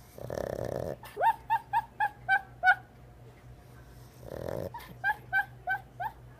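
Dog snoring and whimpering in its sleep while dreaming. A long snoring breath comes near the start, then a quick run of about six short high whimpers. Another snore about four seconds in is followed by about five more.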